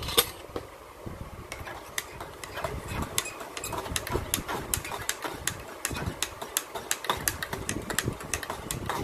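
Electric kettle heating water with a steady low rumble, over many light clicks and taps from things being handled.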